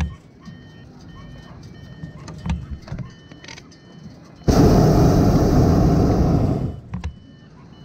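Hot air balloon's propane burner firing in one blast of about two seconds, starting about four and a half seconds in and cutting off suddenly. Before it a faint repeating beep and a few light clicks.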